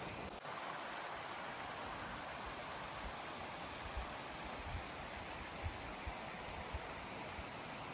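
Rushing water running steadily, with a few soft low knocks about four and six seconds in.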